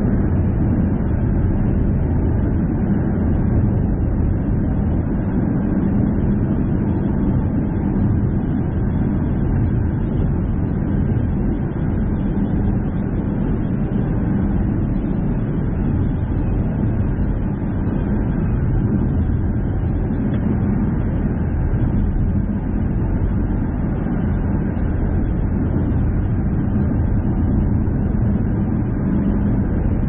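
Car driving at a steady speed: an even low rumble of tyre and engine noise that holds constant throughout.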